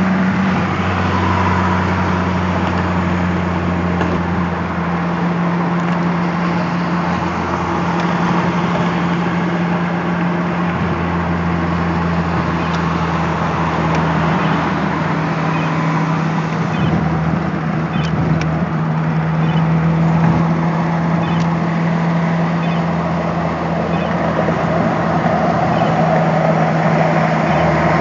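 Steady road noise inside a car's cabin at freeway speed: a constant low engine and drivetrain hum under tyre and wind noise.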